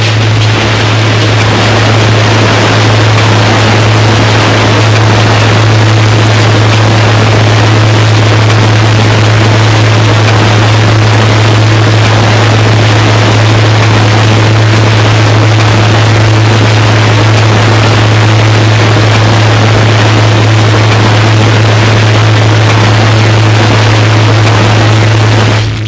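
Turntable noise performance: a steady, very loud wall of harsh noise over a heavy low drone, with a fainter tone held above it. It cuts in abruptly and drops away suddenly near the end.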